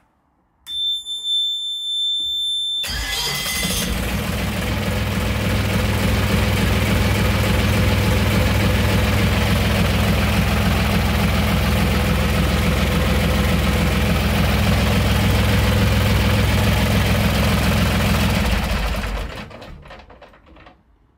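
The engine panel's warning buzzer sounds a steady high tone for about two seconds. Then the Bukh DV48 turbo diesel cranks briefly and starts on the first try with its new fuel supply, runs steadily, and is stopped near the end, running down over about a second.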